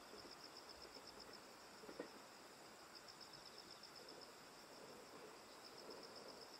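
Near silence with faint insect chirring: a high, rapidly pulsing trill that goes on steadily, with a soft tap about two seconds in.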